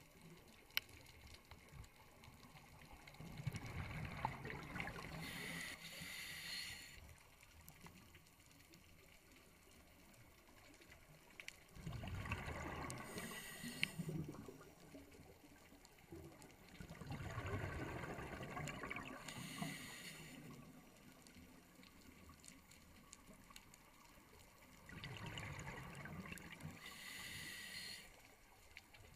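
A scuba diver breathing through a regulator, heard underwater. There are four breaths, about seven to eight seconds apart, each a rush of exhaled bubbles together with a hiss from the regulator.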